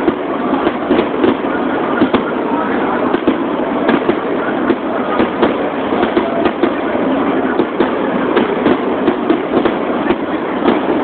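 Dense, unbroken barrage of aerial firework shells bursting close by: a continuous crackling rumble with frequent sharp bangs at irregular intervals.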